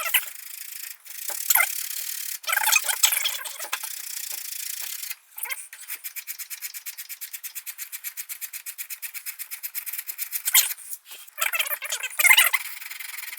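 Copper pipe and fitting being scrubbed clean with a wire brush to prepare them for soldering. There are rasping bursts, then a long run of rapid, even back-and-forth strokes, several a second, and more scraping near the end.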